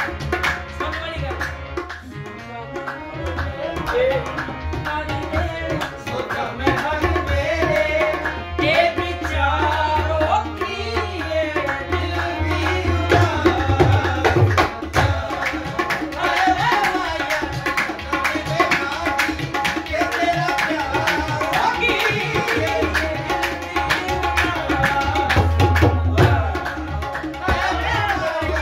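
Live qawwali: a man sings to harmonium, with tabla and dholak keeping a steady rhythm.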